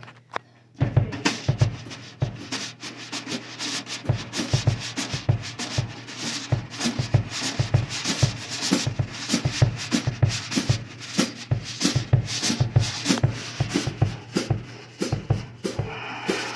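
Drum kit played with nylon brushes: a busy run of brush swishes and taps on the snare, with frequent low drum thumps underneath, starting about a second in.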